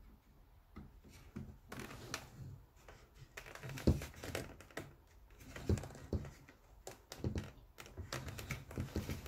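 Hand-lacing a leather scabbard clamped in a wooden stitching horse: lace drawn through punched holes, with irregular rustles, clicks and a few sharper knocks.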